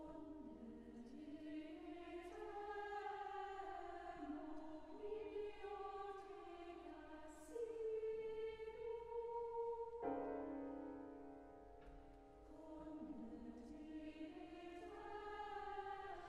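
Mixed choir singing a slow, soft passage of held chords that change every second or two.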